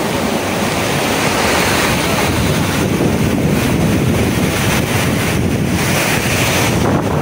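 Strong storm wind gusting through palms and trees and buffeting the phone's microphone: a loud, steady rushing noise that surges a little from moment to moment.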